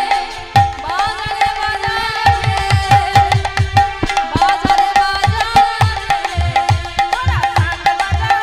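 Bengali kirtan music: a khol barrel drum beats a fast, even rhythm of deep strokes, about three to four a second, under a steady held melody tone and sharp metallic clicks. Rising pitch slides come in now and then.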